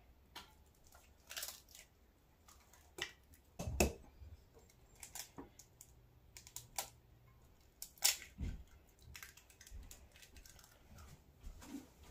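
Eggs being cracked by hand into a glass measuring cup: scattered light clicks and taps of eggshell, with two louder knocks about four and eight seconds in.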